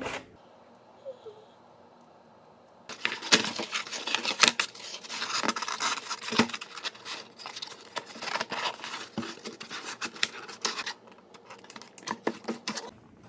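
Cardboard mailer box handled and folded by hand: a run of scraping, rustling and tapping that starts about three seconds in and thins out near the end.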